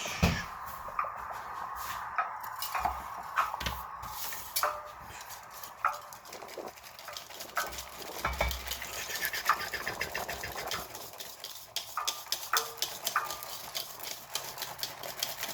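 Metal utensil clinking and knocking against a bowl while muffin batter is mixed: sharp irregular clicks that come faster for a couple of seconds midway.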